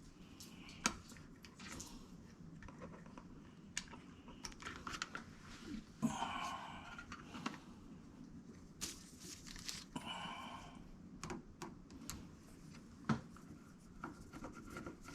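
Scattered light clicks and handling noises as the electronic lock's cover is fitted and screwed down, with two short rasping scrapes about six and nine seconds in.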